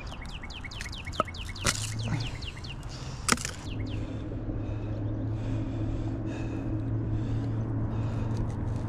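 A bird chirping in a quick run of short falling notes for the first few seconds, with a few sharp clicks of handling. A steady low hum sets in about four seconds in and holds.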